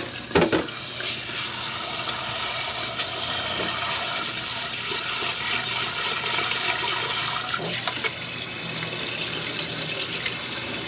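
Kitchen tap running water into a bowl of rice being rinsed, a steady splashing hiss that eases a little about three-quarters of the way through. Near the end the cloudy rinse water is poured off into the sink.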